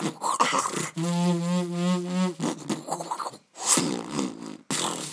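Beatboxed vocal sound effects: a held, buzzing hum with a slight waver in pitch for about a second and a half, set among short hissing, swooshing and clicking mouth sounds.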